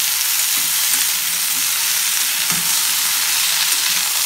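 Amaranth stems and potato pieces sizzling in hot mustard oil in a wok, stirred and turned with a spatula: a steady frying hiss with soft scrapes of the spatula now and then.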